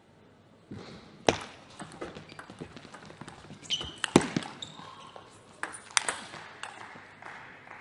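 Celluloid-style table tennis ball struck back and forth in a rally: an irregular series of sharp clicks of ball on rubber paddles and on the table, the loudest about a second in and again about four seconds in.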